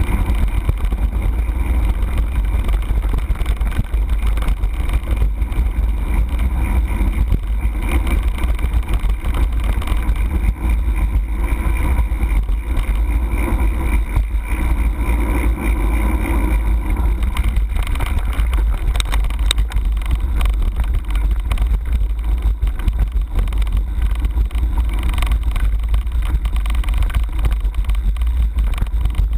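Mountain bike riding over a rough dirt track, heard from a camera mounted on the handlebars: wind buffets the microphone in a loud, steady low rumble, with constant small rattles and knocks from the bike shaking over the ground.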